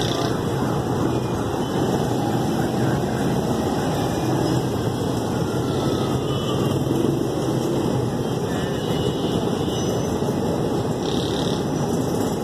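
Steady background rumble of street traffic and outdoor noise.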